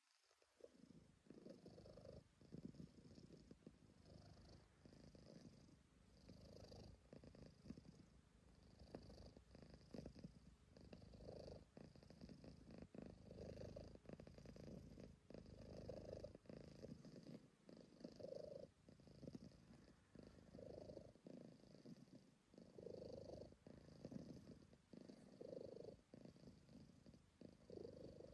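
A calico cat purring quietly and continuously, the purr swelling and easing about every two seconds with its breathing.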